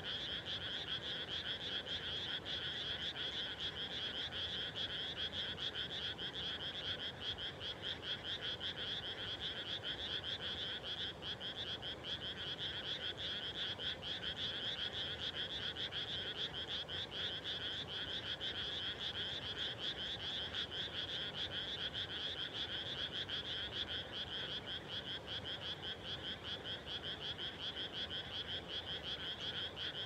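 A dense chorus of many frogs calling at once from a flooded, newly planted rice paddy: rapid pulsing calls overlapping into a steady, unbroken din.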